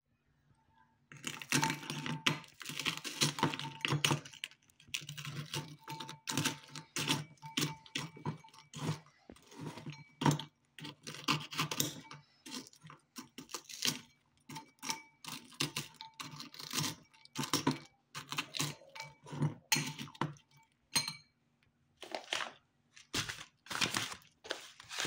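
A metal fork crushing BN chocolate-filled sandwich biscuits in a glass bowl: irregular runs of sharp clicks and clinks of the fork against the glass, mixed with the crunch of breaking biscuit, starting about a second in with short pauses. A faint steady hum lies underneath.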